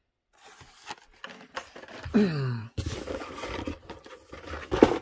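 Hot Wheels blister cards and the corrugated cardboard case rustling and scraping as hands dig into the box for the next cars, with small clicks and a brief falling tone about two seconds in.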